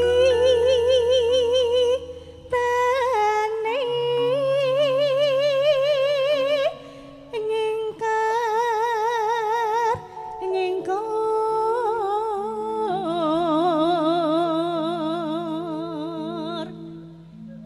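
Female Javanese singer singing long, slow held notes with strong vibrato, in a few drawn-out phrases, over sustained keyboard notes of a campursari band. The voice drops out shortly before the end.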